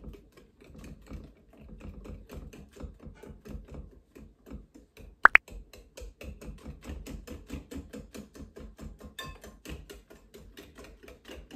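Wire whisk beating cornbread batter with softened butter in a glass bowl, in quick, steady, rhythmic strokes. About five seconds in, a brief sharp click stands out as the loudest sound.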